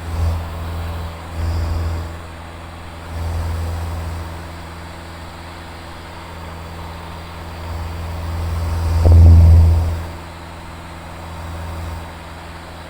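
Van's RV-7 light aircraft's engine and propeller droning steadily in the cockpit in cruise, a low hum that swells several times, loudest about nine seconds in.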